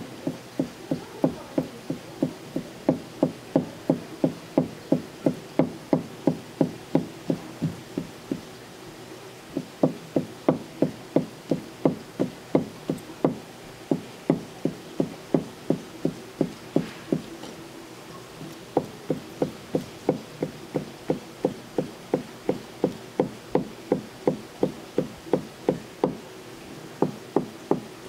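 Kitchen knife striking a wooden cutting board in a steady rhythm, about two to three cuts a second, as cuttlefish is sliced for sashimi. The cutting breaks off twice for a moment, about a third of the way in and again past the middle.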